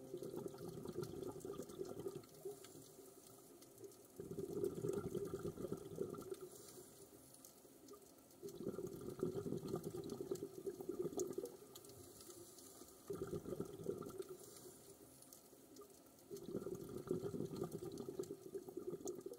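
Faint water sound that swells and falls in five surges, each two to three seconds long, about every four seconds.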